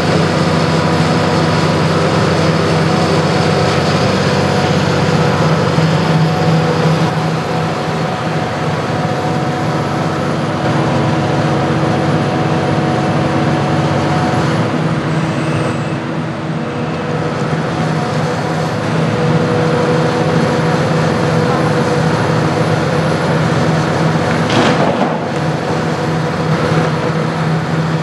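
Hitachi Zaxis 350 LCN hydraulic excavator working: its diesel engine runs steadily under load, with several steady tones over a constant mechanical din. A brief sharp noise stands out near the end.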